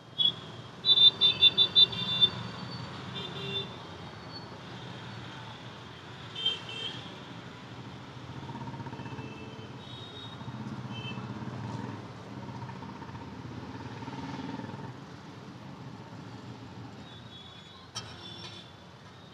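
Street traffic: a fast run of about six short horn beeps about a second in, another short beep around six seconds in, and the low rumble of passing engines swelling in the middle.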